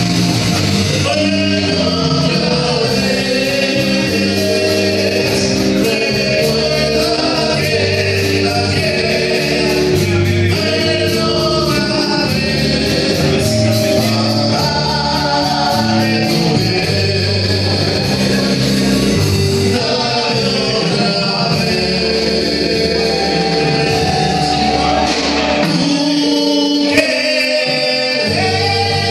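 Live band playing a song with singing, picked up from across a restaurant dining room. The bass drops out briefly near the end.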